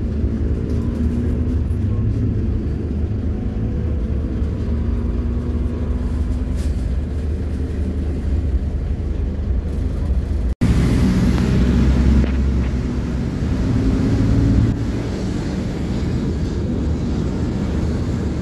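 Interior noise of a PAZ 320414 bus on the move: the engine drones steadily with a low rumble, its note rising and falling as it pulls. A brief gap comes about ten seconds in, after which it runs louder for a few seconds and then eases.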